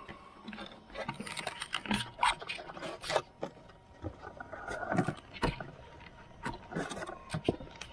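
Handling noise right at the camera: irregular knocks, clicks and short scrapes as hands work on the stopped Traxxas Unlimited Desert Racer's plastic body shell and camera mount.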